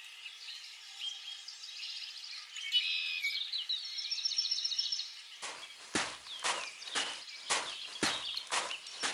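Birds chirping over a faint outdoor ambience. About halfway through, a series of sharp knocks begins, roughly two a second, about eight in all.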